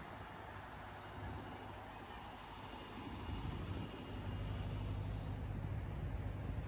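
Low engine rumble of a heavy road vehicle that grows louder from about three seconds in, over steady street traffic noise.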